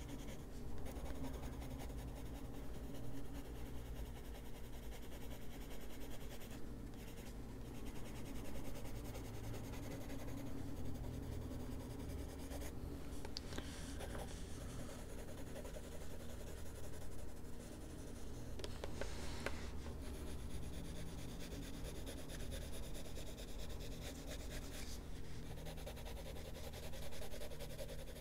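Faber-Castell Polychromos colored pencil shading on a coloring-book page: a continuous scratchy rub of pencil lead on paper, swelling and easing with the strokes.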